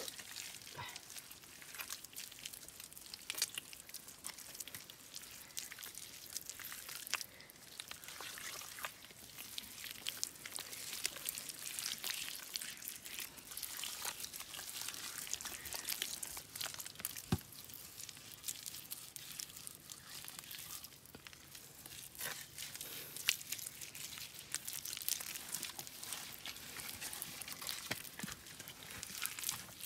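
Wet clay mud being squeezed, pressed and patted by hand, giving many small wet clicks and squelches over a soft hiss.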